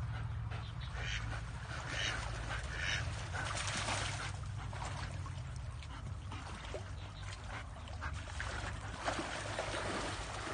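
Ducks quacking: three short calls about a second apart near the start, then more scattered, busier calls and splashy sounds, over a low steady hum.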